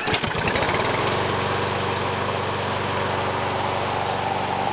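Toro Super Recycler's Briggs & Stratton 7¼ hp mower engine pull-started: it catches at once, picks up speed over the first second, then runs steadily with the blade engaged.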